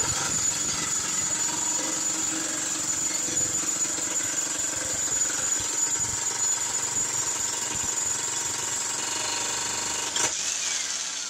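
Xtreme Power US electric demolition jackhammer hammering steadily into a concrete slab, a continuous rapid chatter of chisel blows with a high whine over it.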